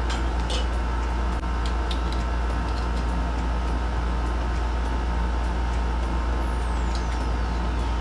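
A steady low hum, with a few light clicks and a single knock about a second and a half in from an XLR cable plug being fitted into the base of a BM-800 condenser microphone. A faint falling whistle near the end.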